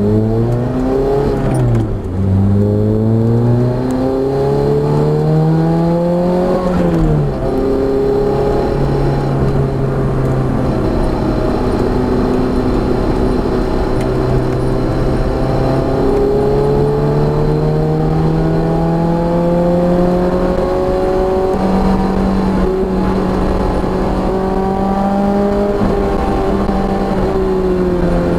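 Car engine accelerating hard on a race track, its pitch climbing and dropping at upshifts about two and seven seconds in, then held at fairly steady revs with gentle rises and dips.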